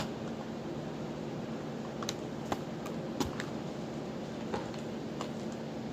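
Scattered light clicks and taps of a toy's packaging being handled and worked open, over a steady low hum.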